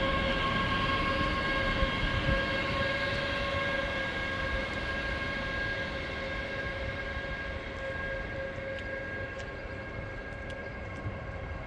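Ganz-MÁVAG V63 Gigant electric locomotive with its train: a steady multi-tone electric whine over a low rumble, slowly getting fainter as the train pulls out.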